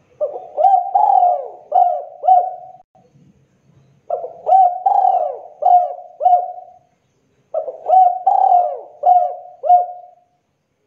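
A spotted dove (derkuku/tekukur) cooing its song three times, each phrase a run of five coos, with a short pause between phrases.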